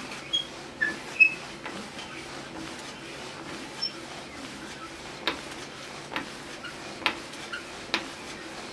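Hand drill boring a hole into a maple board, with a sharp click about once a second in the second half as the crank turns.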